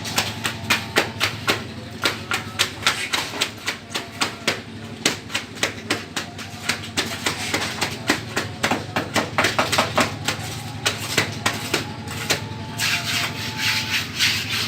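Rapid, uneven sharp knocks, about three or four a second, over a steady low engine hum at road construction work, with a stretch of scraping near the end.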